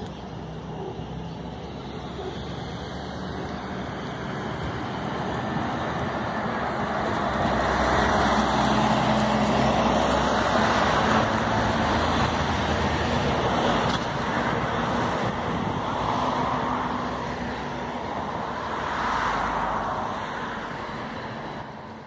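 Road traffic passing close by: cars and a minibus, their tyre and engine noise building to its loudest in the middle, with a low engine hum, and swelling twice more near the end.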